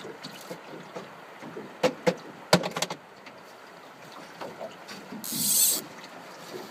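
Fishing reel working during a fight with a hooked steelhead: a few sharp clicks and knocks about two to three seconds in, then a brief high-pitched buzz of line being pulled off against the drag near the end.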